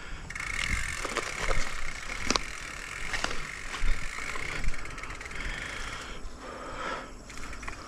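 Mountain bike rattling and clicking as it is moved over rough grassy ground, with several sharp clicks, over a low rumble and a steady high-pitched drone.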